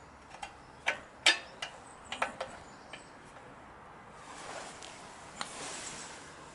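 Small metal parts of a motorcycle front brake (pads and pad clips) clicking and clinking as they are handled and fitted into the caliper: a handful of sharp ticks in the first couple of seconds, then a soft rustling.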